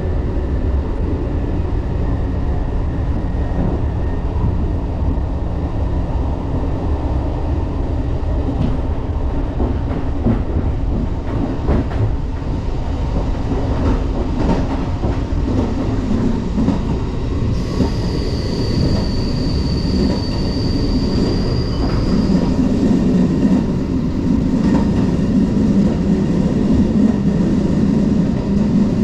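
Running sound inside a JR 381 series tilting electric train at speed: a steady rumble with the click of wheels over rail joints. A little past halfway a high, steady squeal sounds for about five seconds, and near the end the rumble grows louder.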